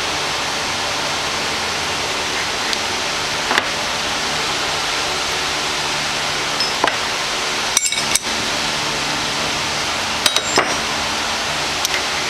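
Light metallic clinks and taps, a few scattered and two close pairs in the second half, as a small centre-height jig and tools are handled against the lathe's tool bit and work, over a steady hiss.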